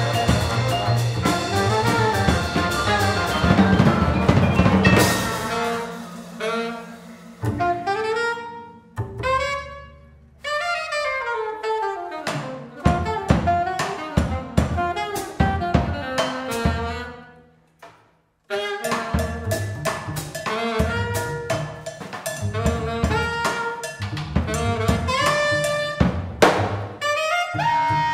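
Live free-leaning jazz from a sextet of trumpet, alto saxophone, trombone, vibraphone, double bass and drums. Dense full-band playing thins out, with falling glides, then breaks off almost to silence for about a second roughly two-thirds of the way through before the band comes back in with busy, sharp hits.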